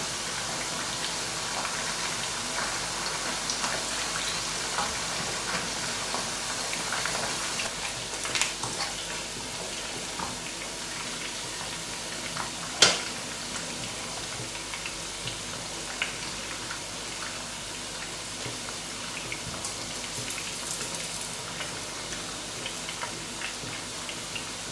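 Chicken pieces sizzling in hot oil in a karahi: a steady frying hiss with scattered small pops and crackles. A sharp click stands out about halfway through.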